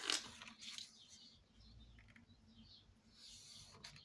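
Faint rustle and slide of a cardstock sheet being handled and positioned on a paper trimmer, with a short paper scrape right at the start.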